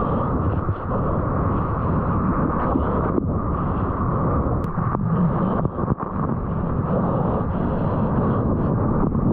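Continuous rush of ocean water and wind noise on a GoPro's microphone, sounding muffled through its waterproof housing, while surfing.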